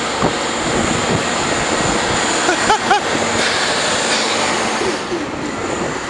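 Articulated Nova Bus LFS city bus's diesel engine running hard with a steady high whine as the bus struggles to move off in deep snow.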